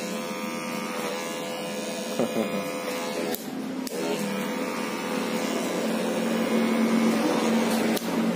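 Electric hair clippers running with a steady hum, cutting hair held up on a comb; the hum gets louder about halfway through.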